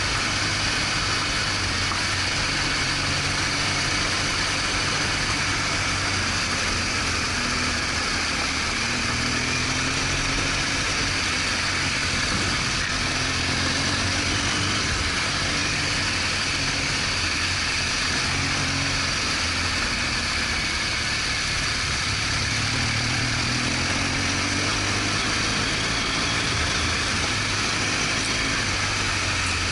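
BMW R1200GS Adventure's boxer-twin engine running under way, its pitch drifting up and down with the throttle, over a steady hiss.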